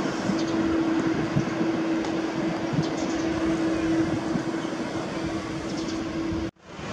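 Boeing 787-8 airliner's GEnx jet engines at idle thrust while taxiing: a steady rushing jet noise with a steady low hum running through it. The sound cuts out abruptly near the end.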